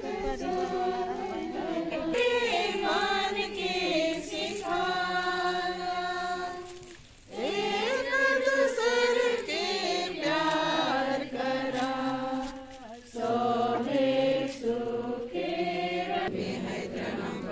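A group of mourners singing a hymn together at a burial, in long held phrases with short breaks between them.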